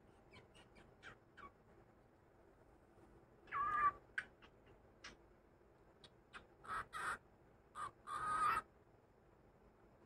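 Cockatiel calling: a few soft chirps and clicks, then several short harsh calls, the loudest about three and a half seconds in and a cluster of calls near the end.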